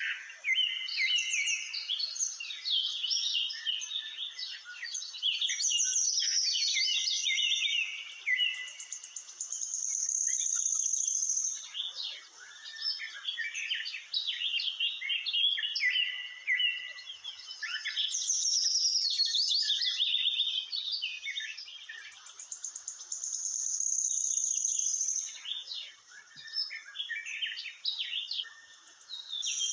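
Birdsong: several small birds chirping and twittering in quick, high phrases, with a high steady trill held for a second or two, twice.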